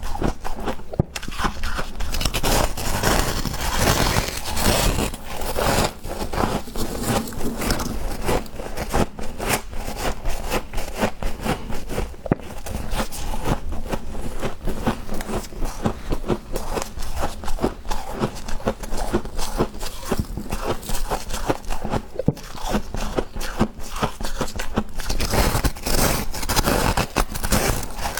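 Freezer frost crunching and scraping in a dense, irregular run of crackles.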